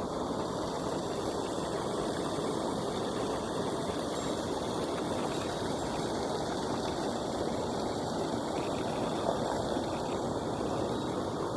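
Steady rush of a mountain stream's flowing water, an even, unbroken sound with no change in level.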